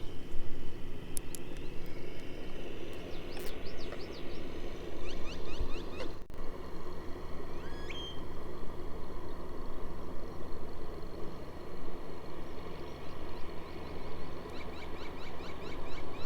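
Small birds calling: quick runs of short rising chirps, a few seconds in and again near the end, with one whistled note, over a steady low rushing noise.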